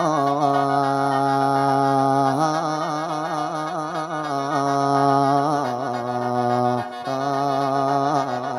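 Mor lam singer holding the long, wordless opening 'oh…la no' wail in Isan style, the pitch wavering in quick ornaments and stepping down between held notes, with a steady khaen reed-organ accompaniment beneath.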